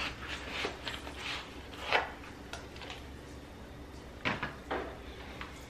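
Shoes and insoles being handled: a few short knocks and rustles, the clearest about two seconds in and again just after four seconds.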